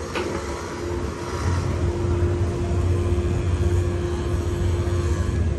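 Low engine drone with a steady hum, growing louder over the first second and a half and then holding.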